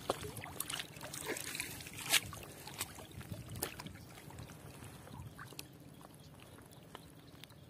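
Small splashes, drips and light sloshing of water as a fishing net is drawn through the surface, with one sharper splash about two seconds in.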